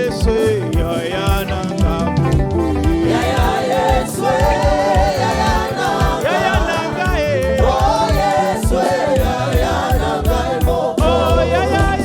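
Live gospel praise and worship music: a group of voices singing together over a band with a steady drum beat.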